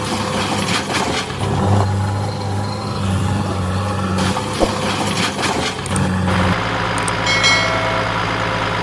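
Heavy vehicle engine running steadily, its note changing about six and a half seconds in, with a few short knocks.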